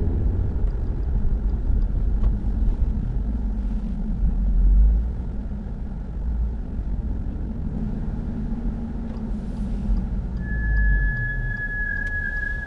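Audi RS3 8V driving with a steady low rumble, then about ten seconds in a single steady high-pitched brake squeal sets in for about two and a half seconds as the car brakes. It is the persistent squeal these brakes make on every stop.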